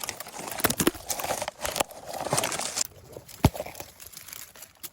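Leaves and branches rustling, with twigs crackling, as a hedge or bush is pushed through. It is busiest for the first three seconds, then goes quieter, with one sharp click about three and a half seconds in.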